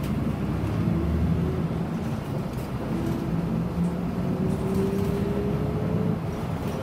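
Nishitetsu city bus's engine running as the bus drives along, heard from inside the cabin. From about four seconds in, a faint whine rises slowly in pitch.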